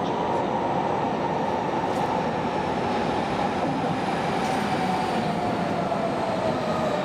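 Berlin U-Bahn train running on the elevated line, a steady loud rumble with a whine that slowly falls in pitch throughout.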